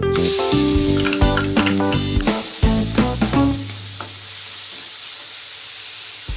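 Food sizzling as it fries in a hot pan, a steady hiss that grows stronger about two seconds in. Plucked guitar background music plays over it and stops about three and a half seconds in, leaving the sizzle alone.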